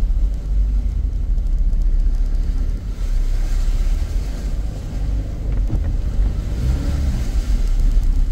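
Toyota Land Cruiser driving slowly through floodwater, heard from inside the cabin: a steady low rumble, with water swishing around the vehicle that swells twice.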